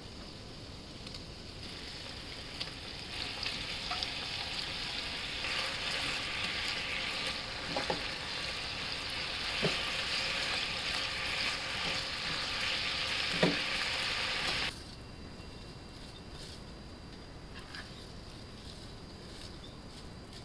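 Pork pieces sizzling in a sauce in a nonstick frying pan, growing louder as they fry, with a few sharp knocks of a spatula against the pan. The sizzle cuts off suddenly about three-quarters of the way through, leaving quiet room tone with a few light rustles.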